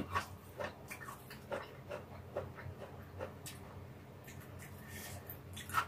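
Quiet eating sounds: soft chewing and mouth smacks, with light clicks of wooden chopsticks stirring stir-fried ramen in a nonstick pan, over a low steady hum.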